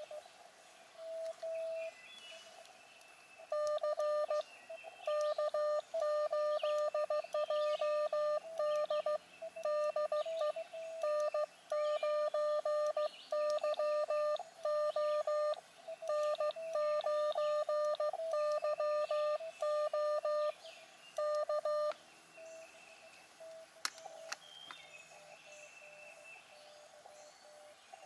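Morse code (CW) sidetone from an Elecraft KX2 transceiver as the operator sends with a paddle key: a single high beep keyed in quick dots and dashes for about eighteen seconds, answering a station with "K8JD DE N9YO K". It then stops, and a much fainter Morse tone comes through receiver hiss as the other station's reply is received. Birds chirp faintly now and then.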